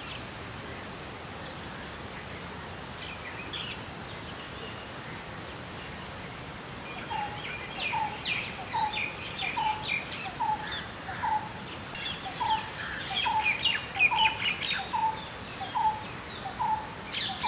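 Outdoor birdsong: several small birds chirping, scattered at first and busier from about halfway through, joined by a steady run of short, evenly repeated notes at about two a second.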